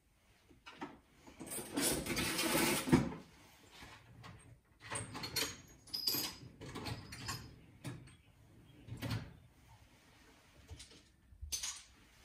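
Rummaging through tools: a rustling clatter, then scattered knocks and clicks of metal tools being picked up and put down, while searching for the right Torx bit.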